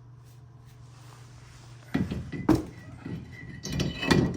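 Large vented brake rotor being shifted and seated on the hub's wheel studs: a few loud metal clunks and scrapes from about halfway in, with a faint ring under them.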